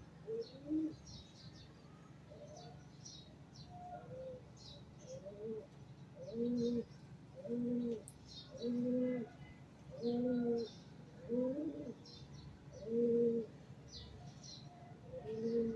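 A pigeon cooing in a run of low, repeated coos about once a second, with softer coos before them. Small birds chirp in short high notes throughout.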